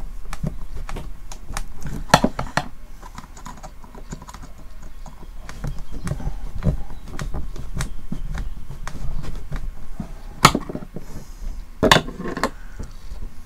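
Irregular small clicks and scrapes of a screwdriver working small metal parts on a portable speaker, with a few sharper knocks about two seconds in and again near the end.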